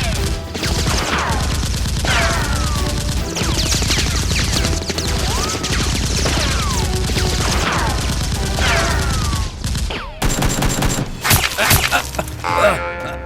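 Rapid automatic gunfire sound effects, with falling ricochet whistles about once a second over the shots. About ten seconds in the firing breaks off, then comes back as a few separate, louder shots.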